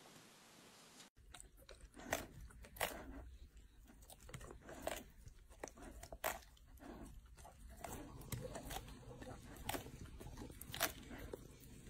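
Dog chewing and biting into food held on the floor, with irregular crunches and sharp clicks of its teeth, starting about a second in.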